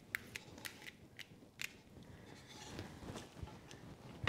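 Wooden spoon knocking and scraping against a plastic colander and stainless steel pot as cold rinsed spaghetti is pushed into the pot. There is a quick string of faint clicks over the first second and a half, then only soft stirring sounds.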